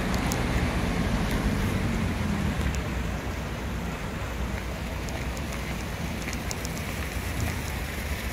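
Steady city street noise from passing car traffic, a low rumble that eases a few seconds in and leaves an even hiss.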